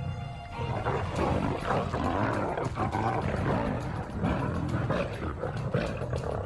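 Lionesses growling and snarling as they scuffle at close quarters, starting about half a second in, over background music.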